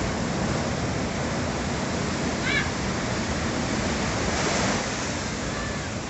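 Ocean surf breaking and washing in foam against a rock outcrop: a steady rushing wash of water, with a brighter surge of breaking water a little past four seconds in.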